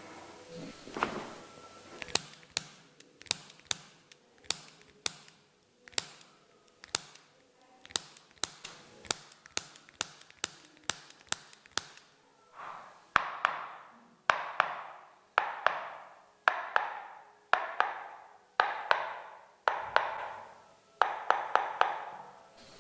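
Sharp taps and knocks on a patient's body during chiropractic treatment. First comes a run of quick, irregular clicks, about one or two a second. Over the last ten seconds come louder strokes about once a second, each with a short rushing tail.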